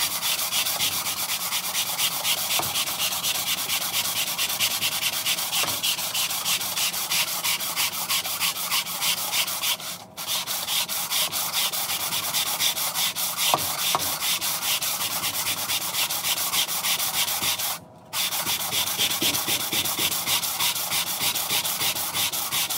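Coarse sandpaper taped to a flat plywood board, rubbed back and forth by hand across the aluminium deck of a Honda D16Y8 engine block: a continuous scraping that stops briefly twice, near the middle and about three-quarters through. The hand sanding is flattening the deck surface for the head gasket.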